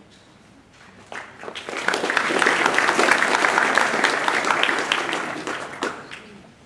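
Audience applauding: the clapping starts about a second in, swells, then dies away near the end.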